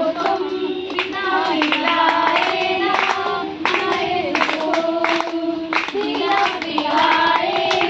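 Women singing a song while the group around them claps along in time.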